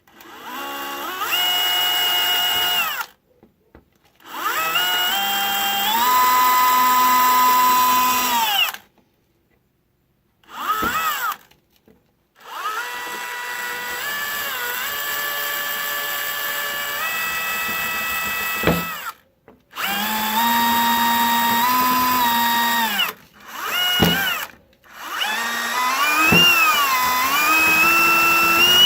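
Cordless drill/driver running in about seven bursts of one to six seconds, its motor whine climbing in pitch as the trigger is squeezed, holding steady, then winding down and stopping between runs. Near the end the pitch wavers up and down as the speed changes.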